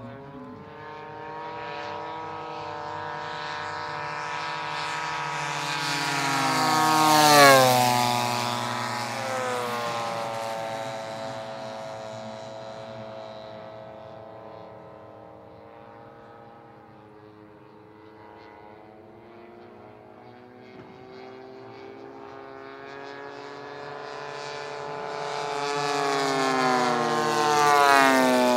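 Engine of a large-scale radio-controlled Corsair model flying two low passes. The note grows louder and drops in pitch as the model goes by about seven seconds in, then fades. It builds again to a second pass with the same falling pitch near the end.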